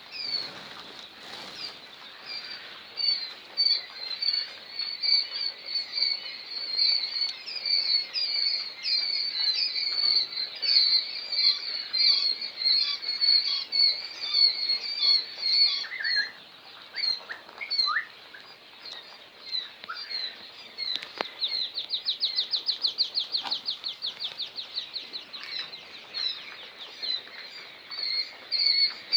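Many day-old white quail chicks peeping together in a continuous chorus of short, high overlapping cheeps. About three-quarters of the way in, a rapid run of quick repeated chirps, around ten a second, stands out for a couple of seconds.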